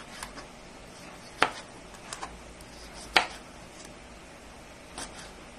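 Kitchen knife slicing red bell pepper on a plastic cutting board: about six sharp, irregularly spaced knocks of the blade on the board, the loudest about a second and a half and three seconds in.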